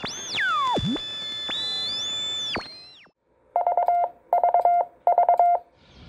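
Electronic logo sound effect: gliding synthesizer tones that sweep down and fade out. About three and a half seconds in come three short groups of keyed Morse code beeps on one steady pitch.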